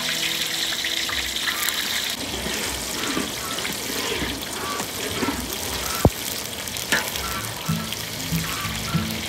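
Green banana slices deep-frying in a large wok of hot oil: a steady bubbling sizzle, with a few sharp clicks from the metal ladle stirring them about six and seven seconds in.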